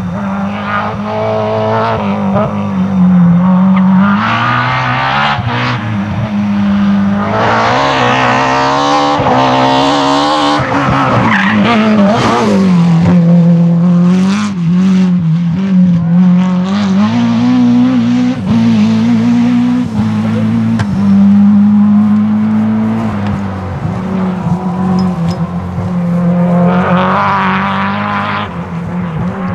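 BMW E30 M3 Group A rally car's S14 2.3-litre straight-four engine running loud at high revs, the pitch repeatedly rising and dropping through gear changes and lifts, with tyres squealing in places.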